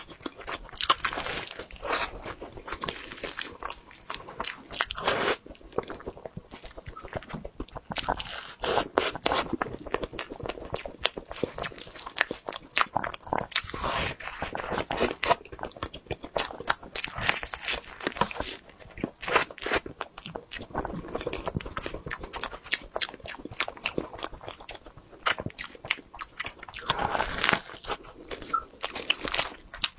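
Close-up mouth sounds of a person biting into and chewing a cream-filled pastry puff: dense clicks and crackles in repeated bouts, with short pauses between.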